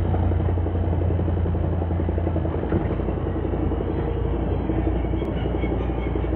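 Early Suzuki Cappuccino underway: the steady low drone of its engine and drivetrain, the kind of running noise recorded to catch a suspected drivetrain fault. The drone drops lower about two and a half seconds in.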